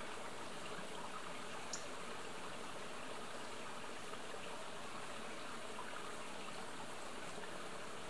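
Steady rushing of a flowing forest stream, an even wash of water noise with no pauses. A faint, short high note about two seconds in.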